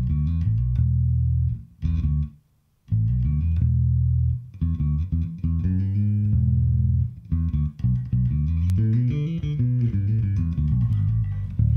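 Sadowsky electric bass played through a Little Walter 60-watt tube bass head into a ported 4x8 speaker cabinet: held low notes broken by short rests, with one brief silence about two and a half seconds in, then a busier run of moving notes from about six seconds in.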